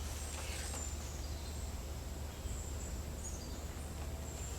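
Quiet background: a steady low hum with faint, thin high-pitched chirps above it.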